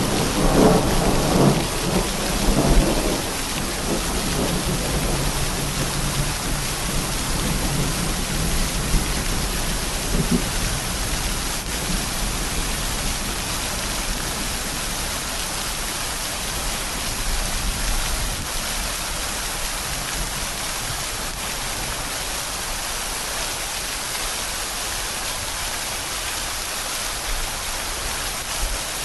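Steady rain hissing, with a low rumble of thunder in the first few seconds that fades by about four seconds in, and a weaker rumble around ten seconds in.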